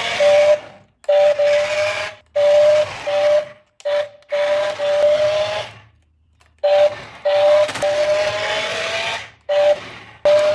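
Small electric motor of a remote-control toy car whining in repeated stop-start bursts, the pitch rising slightly as it spins up each time the throttle is pressed.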